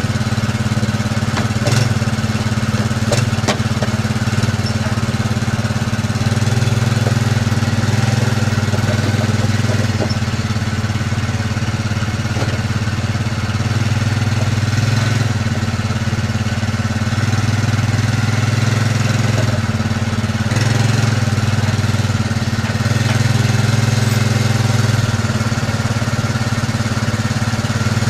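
John Deere compact tractor's diesel engine idling steadily, its level swelling slightly now and then. There are a couple of light knocks about two and three seconds in.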